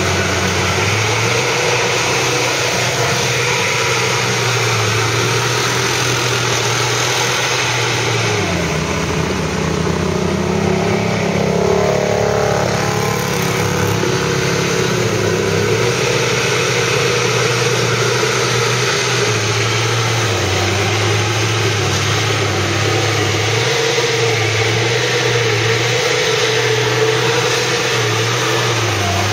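Several ATV (quad) engines idling, their pitch stepping up and down as the throttles are blipped. About halfway through, one quad revs and passes close by.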